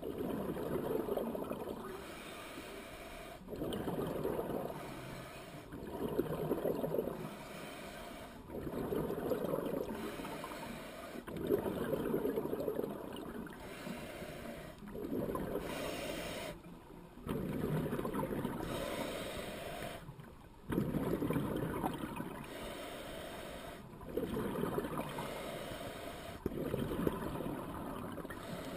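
Scuba diver breathing through a regulator underwater: a rush of exhaled bubbles every two to three seconds, with quieter gaps between.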